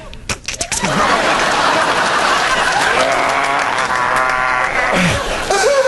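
Studio audience laughing and applauding over a man's mouth-made sound effects into a microphone: a quick run of clicks about half a second in, and pitched vocal noises later, one sliding down in pitch near the end.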